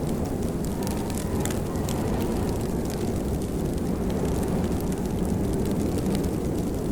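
Steady rain, a dense, deep rushing noise with scattered sharp drop ticks over it.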